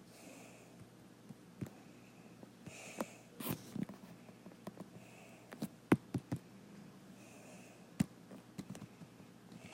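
Scattered clicks and taps from computer controls being worked to bring up forecast model maps, irregular and sharp, with a quick cluster around six seconds in and a single louder click at about eight seconds. Soft breaths can be heard between them.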